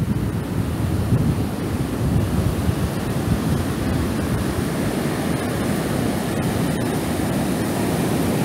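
Ocean surf washing onto a sandy beach, a steady roar, with wind rumbling on the microphone.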